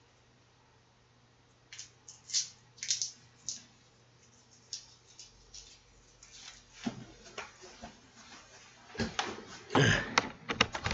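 Handling noises close to the microphone: a few sharp clicks and knocks about two seconds in, then fainter scattered ticks, and from about nine seconds in louder bumps and rustling as someone moves right up to the microphone.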